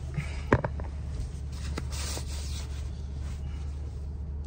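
Rubbing and rustling of a hand-held phone being handled inside a car, with a sharp click about half a second in, over the car's steady low rumble.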